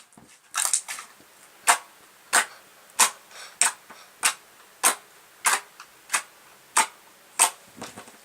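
Stiff, dry pink slime being pressed and worked by hand, giving about a dozen crisp clicking pops at an even pace of roughly one every half-second or so.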